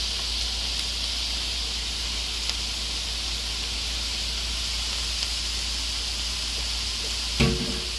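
Chopped onion sizzling in hot oil in a skillet, a steady frying hiss. Near the end a single short knock with a brief ring stands out.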